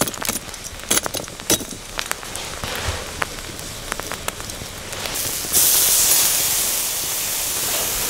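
A few sharp clicks and clinks of handling, then about five and a half seconds in a loud sizzle starts suddenly and holds: marinated tandoori chicken laid on a hot grill over charcoal.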